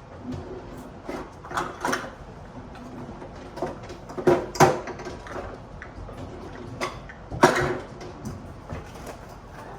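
Kitchen clatter of dishes and utensils being handled: scattered short knocks and clinks, the loudest about four and a half seconds in and again about seven and a half seconds in.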